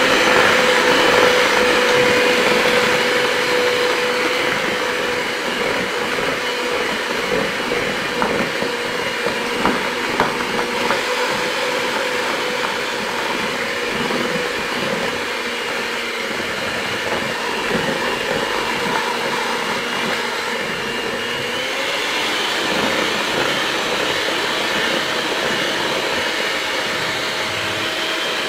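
Electric hand mixer running steadily, its beaters whisking a batter of eggs, sugar, oil and powdered milk. The motor's whine rises a little in pitch about 21 seconds in.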